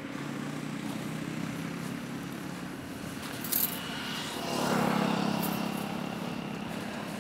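Motor vehicle engine running as traffic at a bus stop, a steady drone that swells again about four and a half seconds in, with a short hiss near the middle.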